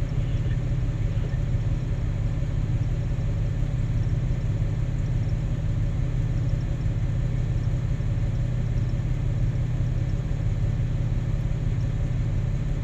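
Heavy diesel engines of a Cat 6020B hydraulic mining shovel and a Cat 777E haul truck running together, a steady low drone with no distinct knocks, as the shovel digs and swings a load.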